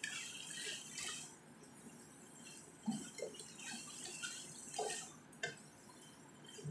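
Shredded chicken frying in oil in a nonstick pan, with a steady hiss of sizzling, while a spatula stirs and scrapes it, giving a few soft knocks against the pan.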